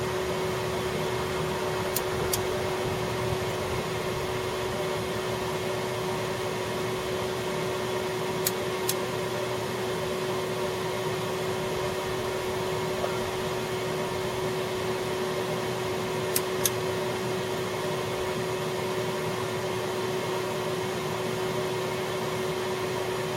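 Vacuum cleaner running with a steady hum, holding a vacuum on the engine so oil stops leaking from the rusted pan. A pair of short, sharp clicks comes three times, about six to eight seconds apart.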